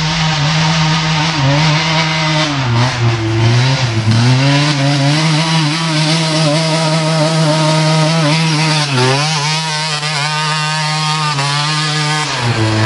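A youth ATV's small engine running hard under throttle, its pitch mostly holding but dipping and climbing back twice, about 4 and 9 seconds in, as the rider rolls off and gets back on the gas.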